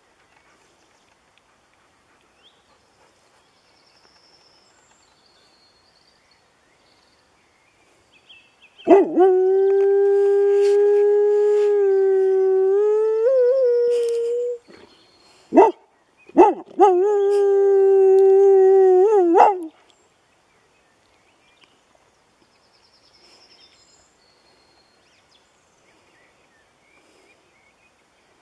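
A dog howling. About a third of the way in comes one long, steady howl that steps up in pitch near its end. A short sharp yip follows, then a second howl of about three seconds.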